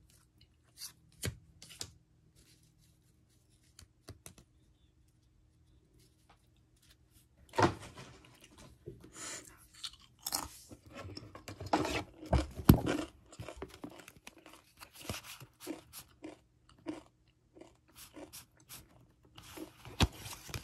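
Pokémon trading cards and booster-pack wrappers being handled. A few soft clicks come first, then, about a third of the way in, a long run of irregular crinkles and rustles begins.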